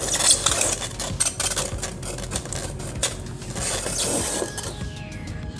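Hands handling and shifting the metal chassis of an H-Buster HBD 7200MP car stereo head unit: an irregular string of clicks, scrapes and rubs.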